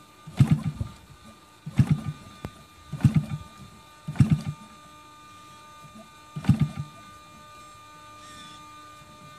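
The gas engine of a giant-scale model airplane being turned over to start: five short bursts of a few rapid firing pops each, about every second and a half with a longer gap near the end, that die away without the engine catching.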